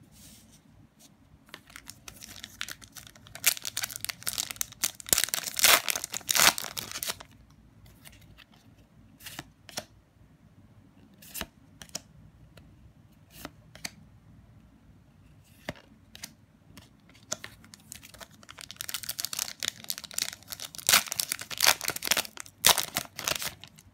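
Foil trading-card booster pack wrappers being torn open and crinkled, in two long spells of crackling: about two to seven seconds in, and again from about eighteen seconds until near the end. Scattered single clicks come in between.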